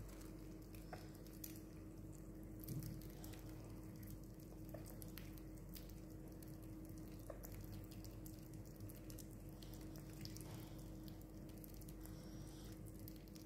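Sugar glider licking and chewing mashed mealworms, making faint, scattered wet clicks and smacks over a steady low hum.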